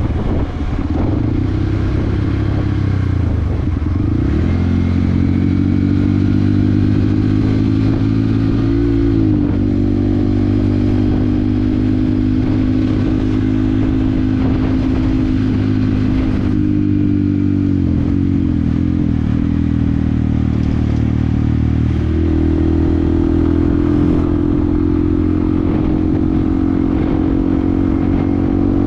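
Yamaha WR155R's single-cylinder engine running under way. Its pitch dips and climbs back in the first few seconds, then holds fairly steady with small shifts near the middle and later on.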